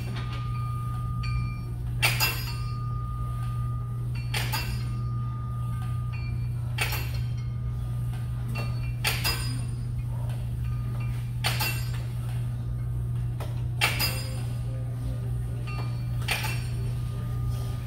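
Metal gym weights clinking together at a steady pace, about one clink every two and a half seconds, each ringing briefly, as repetitions are performed. A steady low hum runs underneath.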